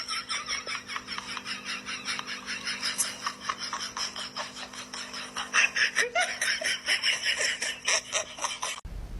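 A person laughing hard in rapid, high-pitched pulses, cutting off suddenly near the end.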